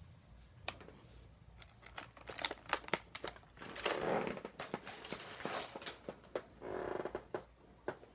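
Plastic snack wrapper crinkling as a cookie package is handled and opened: a run of irregular sharp crackles with two longer rustles about four and seven seconds in.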